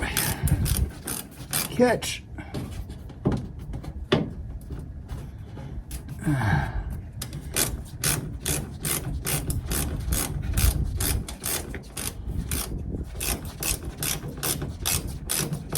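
A hand ratchet wrench clicking in quick, repeated runs as it turns a fastener to tighten the mud flap's mount.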